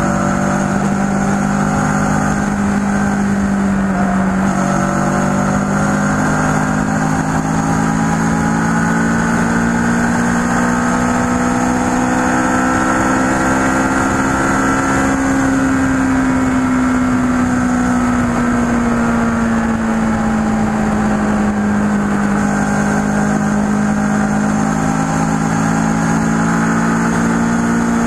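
Kawasaki ER-6n's 649 cc parallel-twin engine running under way at steady cruising speed. Its pitch climbs slowly to a peak about halfway through, eases down, then holds steady.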